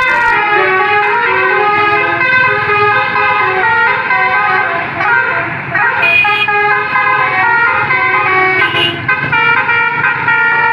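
Telolet basuri multi-trumpet musical horn on a tour bus playing a tune: loud horn notes stepping up and down in quick succession, with a few siren-like gliding slides around the middle.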